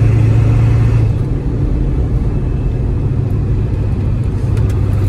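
A 1996 Ford F-350's 7.3-litre Power Stroke turbo-diesel V8 and its road noise while the truck is driven at speed: a steady low drone that eases slightly about a second in.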